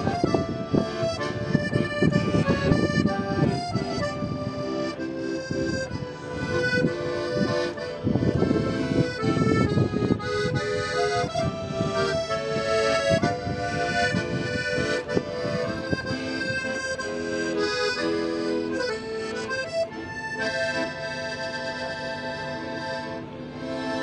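Piano accordion played solo: a tune in the right hand over pulsing bass and chord accompaniment, with longer held chords near the end.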